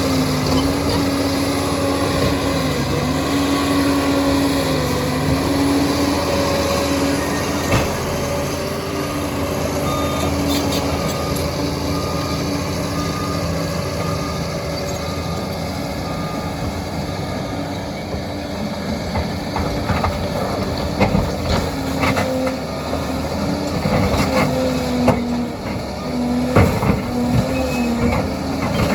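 Liebherr PR 746 crawler dozer working: its diesel engine running with a steady pitched drone that sags briefly now and then under load. In the second half, sharp knocks and clanks from the steel tracks and blade working the ground.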